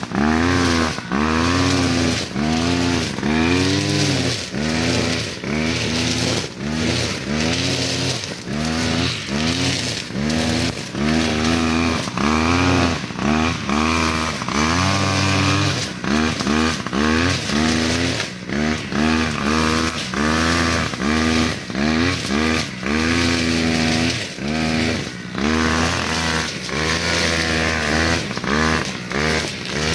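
Engine of a Reload 553 grass cutter revving up and falling back over and over, about once a second, as the throttle is worked on and off.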